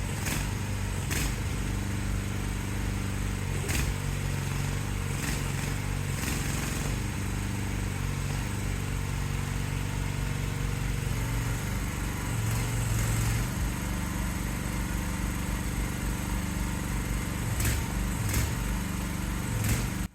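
Small engine of an AGT mini excavator running steadily, its pitch shifting slightly now and then, with a few sharp knocks scattered through.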